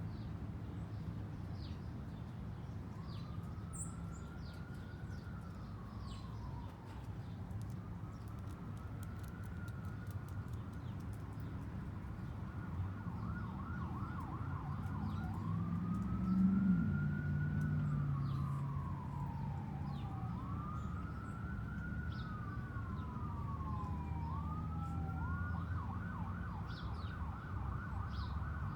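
Emergency-vehicle siren wailing, its pitch slowly rising and falling about every five seconds, starting a few seconds in and holding a high note near the end. A low, steady rumble runs underneath, with faint short bird chirps.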